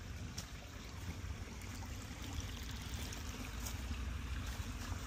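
Shallow creek trickling over pebbles and leaf litter, a steady rush of water, under a constant low rumble, with a few faint ticks.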